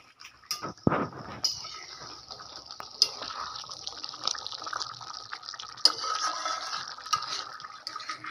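A thick fish curry bubbling in a steel pot while a steel ladle stirs it, with a few sharp clinks of the ladle against the pot, the loudest about a second, three seconds and six seconds in.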